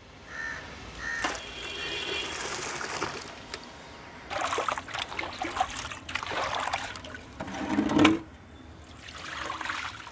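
Hands sloshing cut fish pieces in water in an aluminium basin, with the water splashing and being tipped out near the end.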